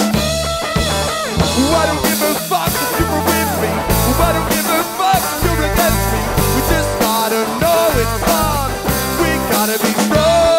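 Rock band playing live, with a drum kit keeping a steady beat and electric guitar, and a lead line that bends up and down in pitch.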